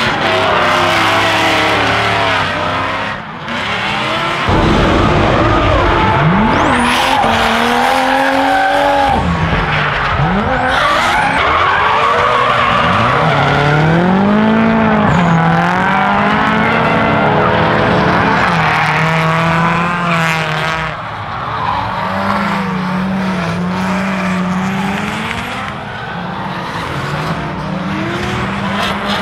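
Drift cars mid-slide: engines revving up and down with the throttle while the tyres squeal and skid.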